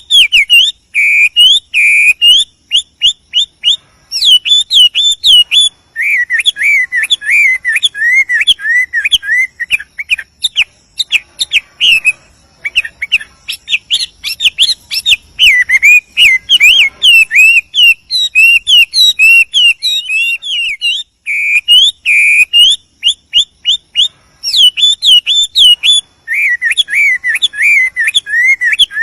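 Male Chinese hwamei (wambi) singing a long, loud, varied song of rapid rising-and-falling whistled phrases, with only brief pauses between runs; the song is a male calling to a female.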